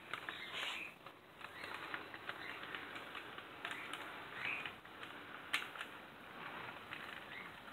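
HO-scale model freight train rolling along the track: a rapid, irregular clicking of the wheels over rail joints and turnouts, with a few brief high squeaks.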